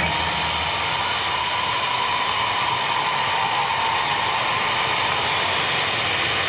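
Crowd in an arena cheering and applauding as one steady, dense roar of noise.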